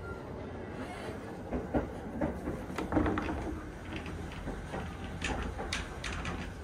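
Train carriage running along the track with a steady low rumble, while the toilet door is opened with a few clicks and knocks in the first seconds; more knocks come near the end.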